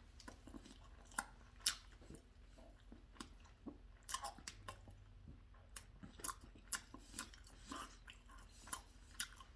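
A person chewing a mouthful of chicken sandwich close to the microphone: a string of irregular short clicks of chewing.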